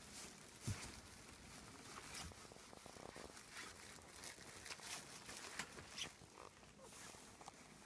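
Faint, scattered pattering and rustling from five-week-old rough collie puppies moving about, with a few short high squeaks and a soft thump about a second in.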